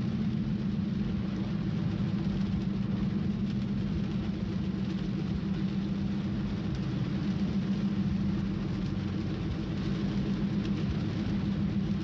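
Steady in-cabin drone of a moving car: a low engine and road hum with an even hiss of tyre and road noise over it.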